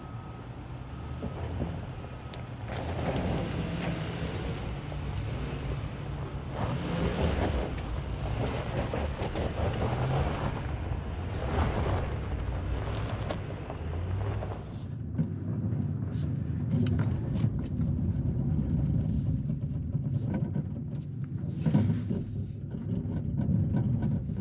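Infiniti QX80's 5.6-litre V8 working under load, its revs rising and falling as the SUV crawls over rough off-road ground, with gusts of rushing noise over the first half. About fifteen seconds in the rushing dies away, leaving a steadier engine drone with scattered clicks and knocks.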